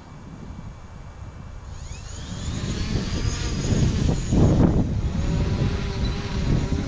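DJI Mavic Pro quadcopter's four motors spinning up with a rising whine a little under two seconds in, then the propellers' steady hum as it lifts off and climbs. A loud, gusty low rushing noise builds under the hum and peaks about halfway through.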